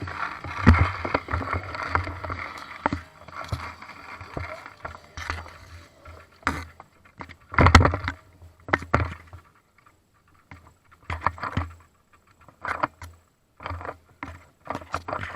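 Irregular sharp clicks and knocks over rustling movement noise, with louder clusters about a second in and near the middle.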